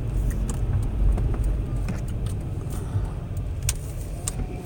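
Low rumble of a car heard from inside its cabin, with scattered light clicks and knocks.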